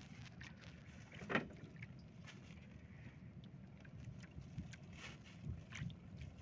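Quiet open-water ambience aboard a small wooden outrigger fishing boat: a faint steady wash of water and wind, with a few light clicks and one brief louder knock about a second and a half in.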